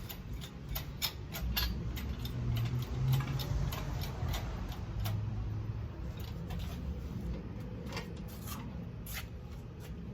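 Irregular sharp clicks and taps of metal tools at work, over a low rumble.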